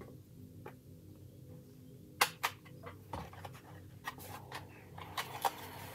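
Scattered light clicks and taps of a hobby knife blade and plastic parts as the one-piece bomb doors used as masks are pried off a plastic model kit's weapons bay, the sharpest click about two seconds in.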